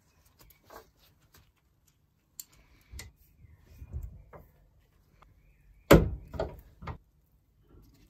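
Old steel padlock and its key being handled and worked over a bench vice: small metallic clicks and rattles, then a sharp knock about six seconds in followed by two lighter knocks.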